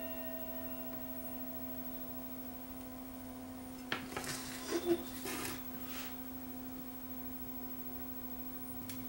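Steady low hum, and about four seconds in a brief clatter of metallic clicks and rattles as a soldering iron is put back in its stand.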